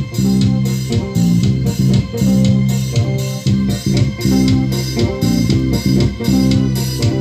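Music with a heavy bass line, guitar and a steady drum beat, played loud through four two-way speaker boxes wired in series-parallel on one amplifier channel as a playback test. It cuts off abruptly at the very end.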